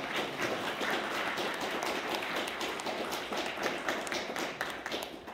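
Audience applauding, a dense, even clatter of many claps that dies away right at the end.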